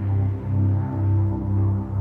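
Background music: sustained, dark-sounding tones over a low bass that throbs about twice a second.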